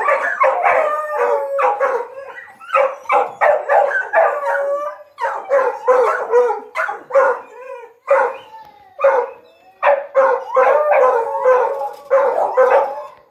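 Hunting dogs barking in quick runs of several barks a second, broken by short pauses, with a few longer calls that waver in pitch.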